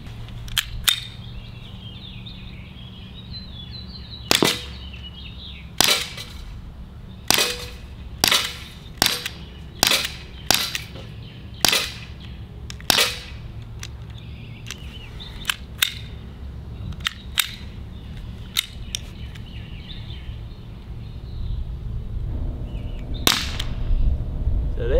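Sig P365 CO2 blowback BB air pistol (4.5 mm/.177) firing about twenty shots, each a sharp pop with the slide cycling back. The shots come at irregular intervals, some in quick pairs, the last after a pause of several seconds. The gun is still cycling about 100 rounds into one 12 g CO2 cartridge.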